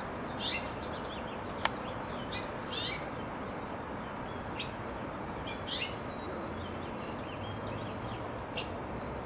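House finch giving short, scattered chirps, each a quick falling note, with gaps of a second or more, over steady background noise. A single sharp click sounds about a second and a half in.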